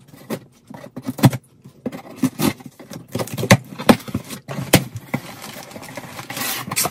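A shipping box and packaging being handled on a table: irregular knocks, taps and scraping, with a short rustle near the end.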